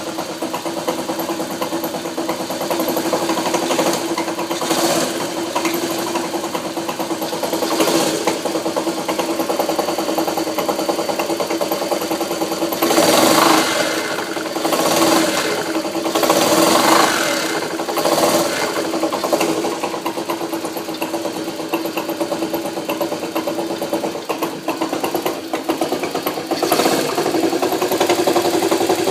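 Honda CM91's small single-cylinder four-stroke engine running with a bad rattle, its cause unknown to the owner. It mostly idles, with several brief revs in the middle.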